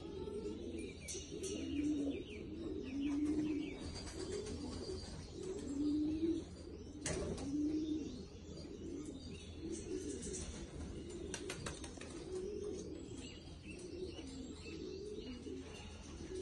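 Domestic pigeons cooing in a loft: low coos repeated about every second, softer in the second half.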